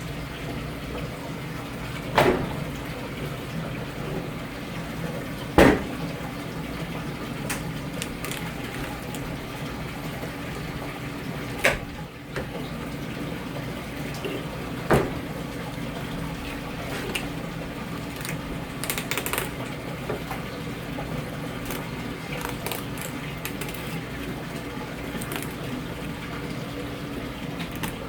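Water running steadily, as from a tap at a sink, over a steady low hum, with four sharp knocks spread through it.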